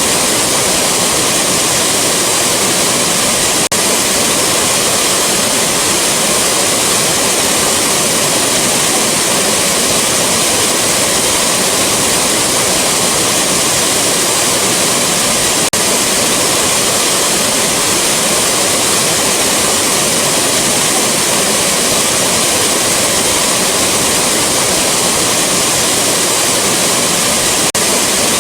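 Rushing waterfall: a steady, loud, full hiss of falling water that never lets up. There are three very brief dips in level about twelve seconds apart, where the recording loops.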